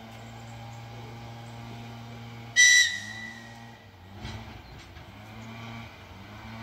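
ER2 electric train's whistle giving one short, high warning blast as the train approaches, loud for a moment and then trailing off over about a second, over a steady low hum.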